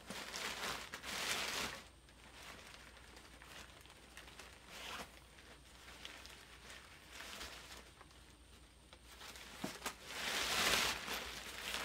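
Nylon paraglider wing bag rustling as it is handled and opened, in several separate bursts, the longest and loudest near the end.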